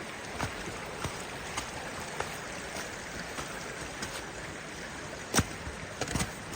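Steady rush of creek water, with scattered faint clicks and one louder knock about five seconds in.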